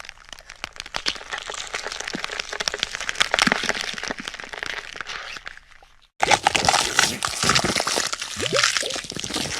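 Two gore sound effects in a row: a long run of dense cracking and crunching, like bones breaking, fades out about six seconds in. After a brief silence a second, louder stretch of crunching begins.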